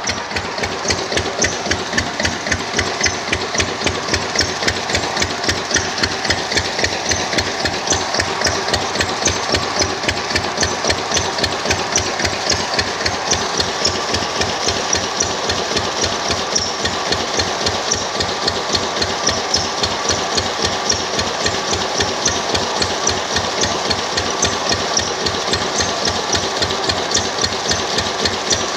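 Single-cylinder stationary diesel engine with a heavy flywheel running steadily, each firing stroke giving an even, regular knock.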